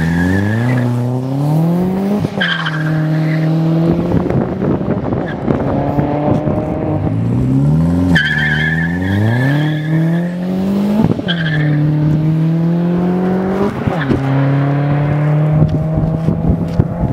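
Mk3 VW Golf's 1.8-litre 20-valve turbo four-cylinder, breathing through a 2.5-inch exhaust with two mufflers, revving up several times, each run rising in pitch and then holding steady before the revs drop. Brief high-pitched whistles come near some of the moments when the revs change.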